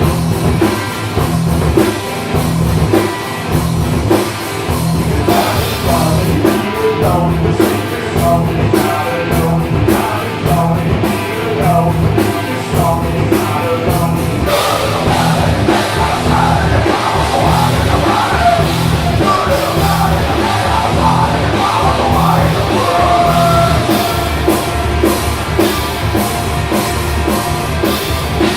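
Loud live rock music from a two-piece band, the drum kit keeping a steady driving beat, with a melodic line or voice over it from about halfway on.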